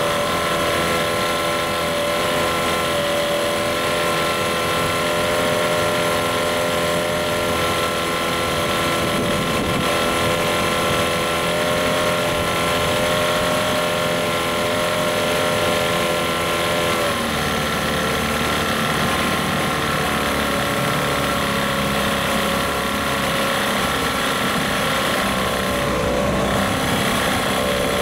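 Johnson-Evinrude 15 hp outboard motor running steadily in a water test tank, its propeller churning the water. The engine note shifts slightly about two-thirds of the way through. It is being test-run to check a reported overheating near the water pump.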